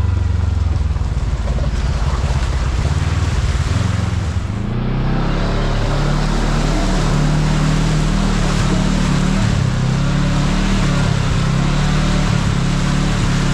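Kawasaki KRX side-by-side's parallel-twin engine running under way over a steady rush of wind. About four and a half seconds in the engine note dips briefly, then carries on at a higher pitch as it picks up speed.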